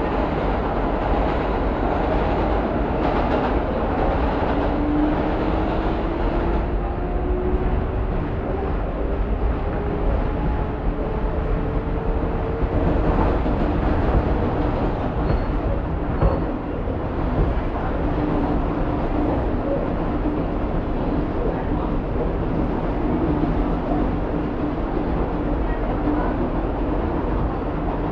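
NYC Subway 7 train of R188 cars running on the rails with a steady, loud rumble. A motor whine rises slowly in pitch over about ten seconds as the train picks up speed, then holds at a steadier pitch.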